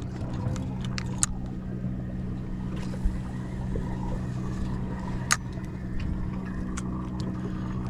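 Steady low mechanical hum from the boat's machinery, with a few sharp clicks or knocks, the clearest about a second, three seconds and five seconds in.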